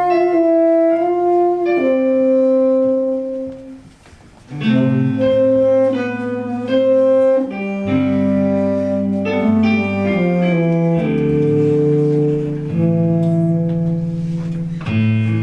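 Instrumental music with held chords, briefly dropping away about four seconds in.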